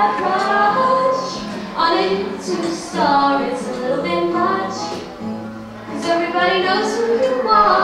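A woman singing with acoustic guitar accompaniment. She draws out long notes that slide up and down in pitch.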